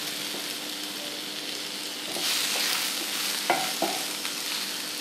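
Chopped vegetables sizzling in oil in a non-stick frying pan while a spatula stirs them. The sizzle swells about two seconds in, and the spatula knocks against the pan twice a little after that.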